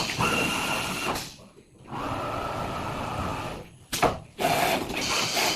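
CNC vibrating-knife fabric cutting machine running: a steady hissing, buzzing machine noise that drops out briefly about a second and a half in and again near four seconds, with a sharp click at about four seconds.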